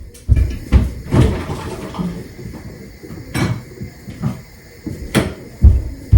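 Kitchen cupboard doors opening and closing and things being moved about inside: a string of irregular knocks and thumps.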